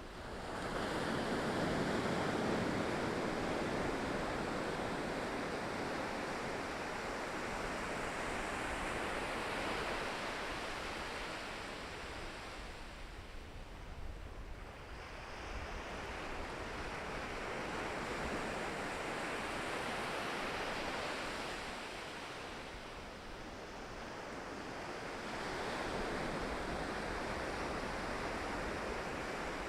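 Pacific Ocean waves breaking and washing on the shore: a steady rushing surf that swells in long surges about ten seconds apart, the first about a second in.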